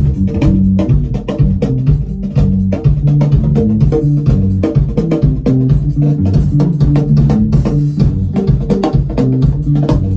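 A drum kit playing a dense, even beat together with bass guitar notes, in a band-style piece of music.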